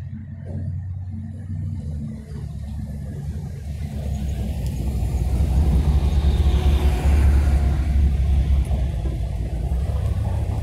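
A car driving up the street toward the microphone. Its engine and tyre noise builds over several seconds into a loud, low rumble as it comes close.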